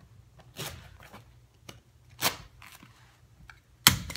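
Carpet being pressed and worked onto a tack strip by hand: a few short scratchy rustles of carpet, then one sharp knock near the end.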